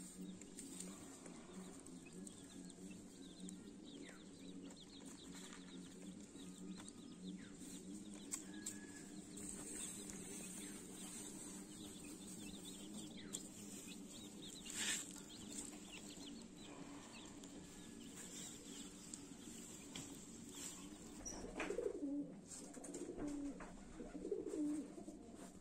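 Pigeons cooing steadily, with a few louder, closer coos near the end, and faint high peeps of chicks.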